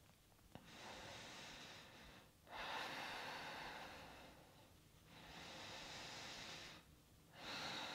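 A woman breathing slowly and audibly in and out, about four breaths of a second and a half to two seconds each, with short pauses between them, as she holds a yoga pose.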